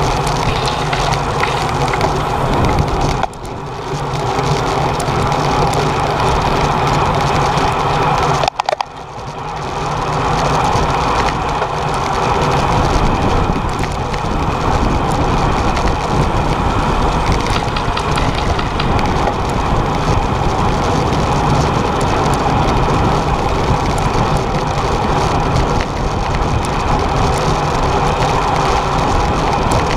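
Steady rush of wind and road noise on a camera riding in a bunch of racing bicycles, with no voices. The noise drops out briefly twice, about three and eight and a half seconds in.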